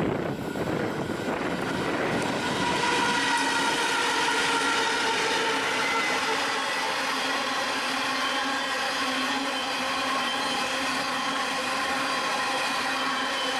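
Diesel locomotives hauling a coal train pass close by, their engines running as a steady tone over the rumble of the hopper wagons on the rails. The sound swells over the first couple of seconds, then holds.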